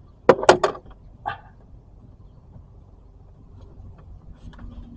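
Long-nose pliers gripping and working a plug-in starter relay loose from its fuse-box socket: two sharp clicks about half a second in, a lighter knock a second later, then a few faint ticks near the end.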